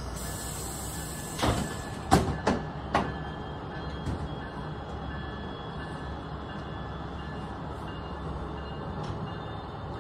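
Amtrak passenger cars rolling slowly along the platform: a few sharp clanks from the wheels and running gear between about one and a half and three seconds in, then a steady low rumble.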